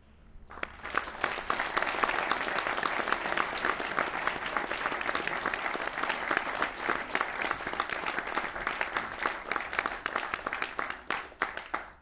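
Audience applauding: dense clapping that starts about half a second in and builds quickly, then thins to scattered claps near the end.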